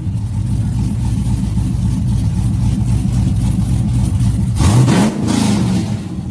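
Car engine running, with one quick rev about four and a half seconds in, its pitch rising before it settles back.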